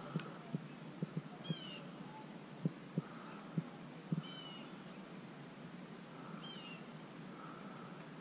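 A bird calling a short, slightly falling note, repeated every two to three seconds, with scattered soft low knocks in between.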